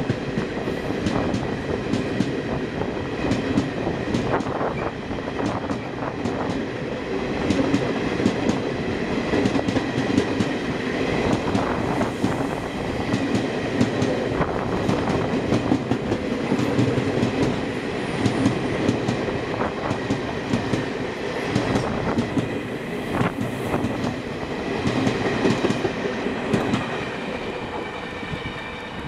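Two passenger trains passing each other at speed on adjacent tracks, heard from a coach of one of them. The passing coaches make a steady rush, and wheels on the rails give a rapid, uneven clickety-clack.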